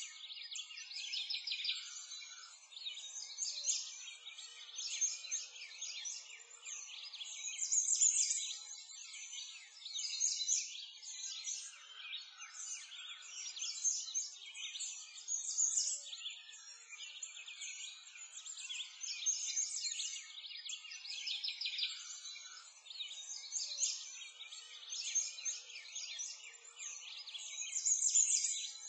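A dense chorus of many birds chirping and trilling, high-pitched and continuous, swelling and easing every few seconds: a nature-ambience soundtrack of birdsong.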